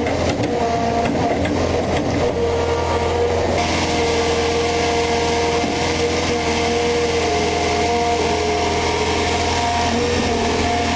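1966 Liebherr 500S excavator's engine running steadily under test, with a whining note that shifts in pitch. About three and a half seconds in, a hiss joins it and stays.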